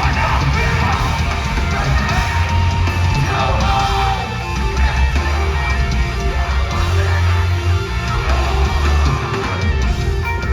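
Metalcore band playing live and loud, with distorted electric guitars over heavy bass and drums.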